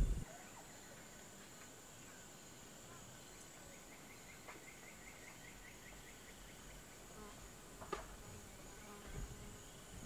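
Rainforest ambience dominated by a steady high-pitched insect drone. A quick run of chirps, about five a second, comes for a few seconds midway, and a single sharp click about eight seconds in.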